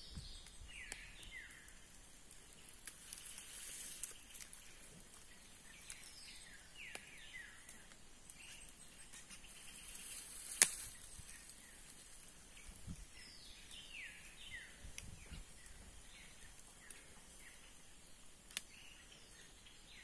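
Scattered short chirping call notes, each sweeping downward, from a flock of great-billed seed finches (bicudos). A single sharp click about ten and a half seconds in is the loudest sound.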